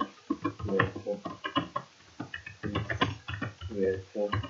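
Computer keyboard typing: a quick, irregular run of key clicks.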